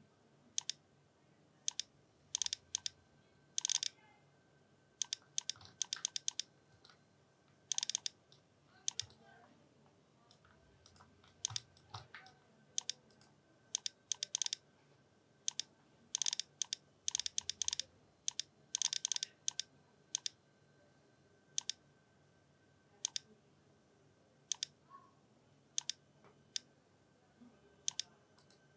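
Computer mouse clicks and keyboard key presses, mostly single clicks with quick runs of several every few seconds, over a faint steady hum.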